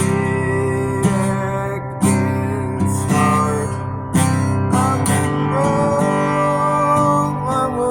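Acoustic guitar music: chords strummed about once a second under a held melody line that slides between notes.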